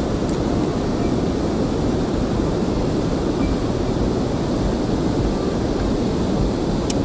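Steady low rumbling of wind buffeting the microphone on an open boat, with one short click near the end.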